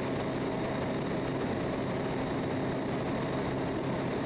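Steady drone of a Quest Kodiak 100's Pratt & Whitney PT6A turboprop and propeller at cruise power, heard inside the cockpit, with a low hum under a broad rushing noise.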